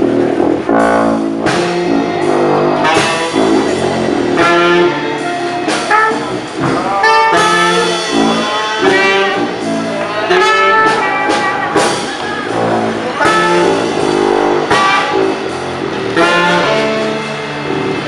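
New Orleans street jazz band playing: sousaphone bass line under a drum kit with cymbals, and saxophone melody.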